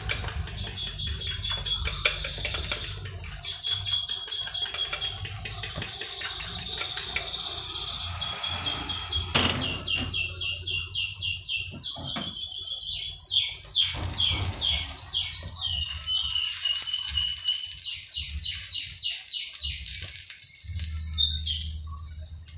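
A songbird singing a long, lively song of rapid high trills and repeated chirps, broken by runs of quick downward-sweeping notes. It stops shortly before the end.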